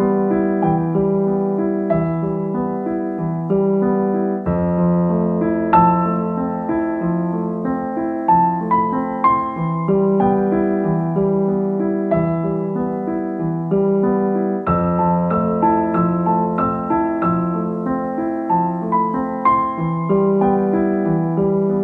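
Piano music playing a flowing, repeating pattern of notes.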